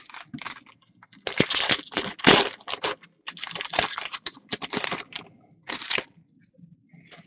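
Trading-card packaging and cards crinkling and rustling as they are handled, in three bursts of a second or two each.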